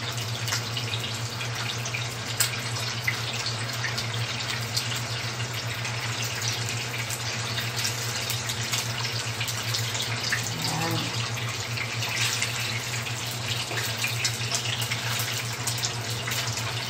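Longganisa sausages sizzling in hot oil in a frying pan: a steady hiss with scattered small crackles and pops, over a steady low hum.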